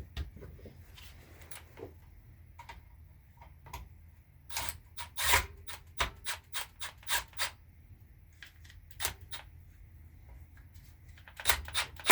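Small metal tools and hardware clicking and clinking in a run of sharp, uneven taps as a ground-wire eyelet is fastened to the motorcycle's ignition coil. The taps come thickest about halfway through.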